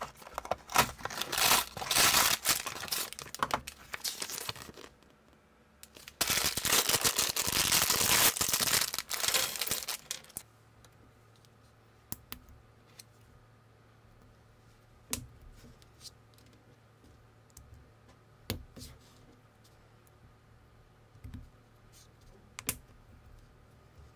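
Cardboard packaging torn and rustled open in two long stretches over the first ten seconds. After that come scattered small clicks as plastic minifigure parts are pressed together.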